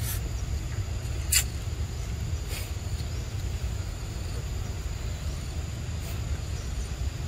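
Outdoor ambience: a steady high insect drone over a low rumble, with a few short sharp sounds, the loudest about a second and a half in.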